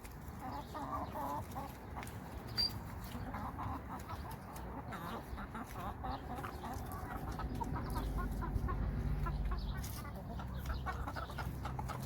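Backyard chickens clucking, with many short calls overlapping throughout.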